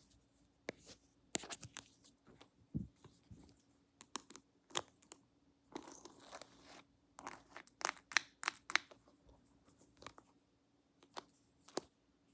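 Close-miked ASMR handling of haircut and shave props: an irregular run of sharp clicks and short crackles, denser for a moment about six seconds in.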